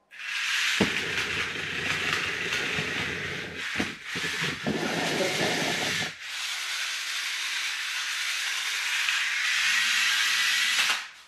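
Small electric motor and gearbox of a kit-built toy car whirring as it drives across a wooden floor, an even high hiss. For the first six seconds a lower rumbling noise runs under it, and the sound cuts off abruptly near the end.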